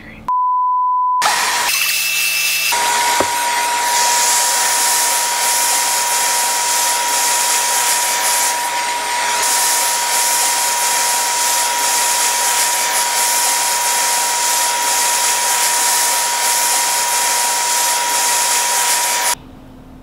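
Eureka NEU182A PowerSpeed bagless upright vacuum running through its hose and dusting brush: a loud, steady rush of air with a steady whine in it, which cuts off abruptly near the end. A short, pure beep-like tone sounds in the first second, before the vacuum noise sets in.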